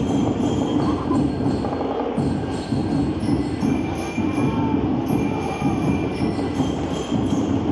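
Marching band music: bright bell-lyre notes ringing over steady drumming.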